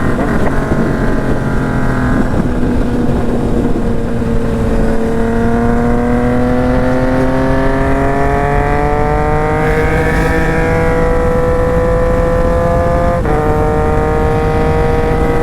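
Yamaha MT-09's three-cylinder engine pulling under load, its pitch climbing slowly as the bike gains speed, then dropping sharply about thirteen seconds in as it shifts up a gear, and holding steady after.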